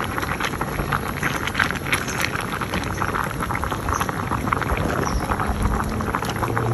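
Pot of vegetables boiling on the stove: a steady bubbling with many small crackles and pops.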